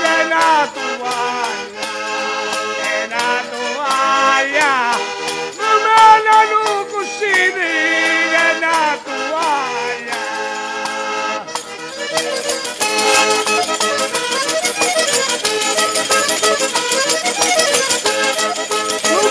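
Organetto (diatonic button accordion) playing a traditional southern Italian folk tune. About two-thirds of the way in, a rattling percussion instrument joins with a dense, even shake.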